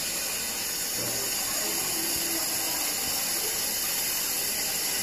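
Water running steadily from a washbasin tap into a plastic bag held in the sink, filling the bag.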